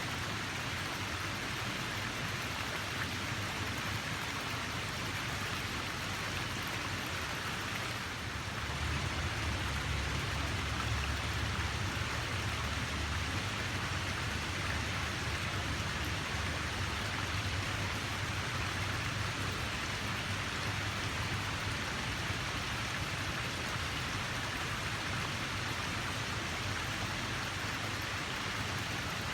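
Steady rush of flowing water, an even hiss with no separate splashes. A low rumble underneath gets stronger about eight seconds in.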